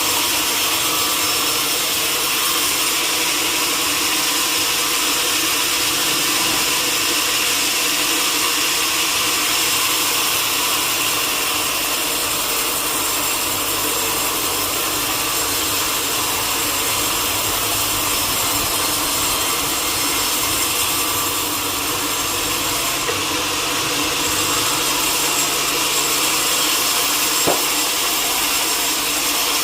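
Sawmill saw cutting a teak log, a steady machine noise with a single sharp click near the end.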